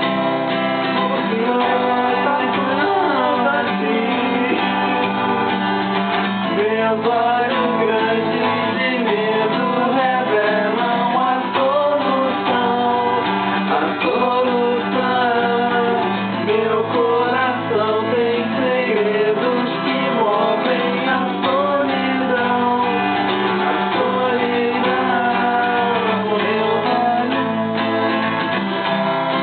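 A song playing: singing voices over guitar accompaniment.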